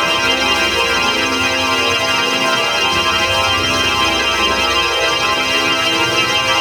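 Electronic organ-style sound effect: a dense chord of many steady tones held at an even level without a break.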